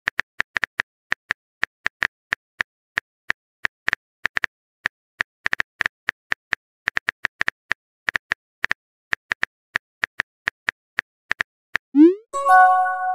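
Phone keyboard typing sound effect: short, light clicks at an irregular pace, a few a second. About twelve seconds in, the message-sent sound: a rising pop followed by a short chime.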